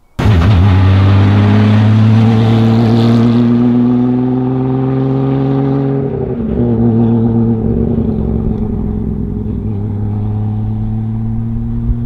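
Porsche 997 GT3 rally car's flat-six engine under acceleration, its pitch climbing slowly. About six seconds in there is a brief break and dip as it changes up a gear, then the pitch rises again as the car pulls away.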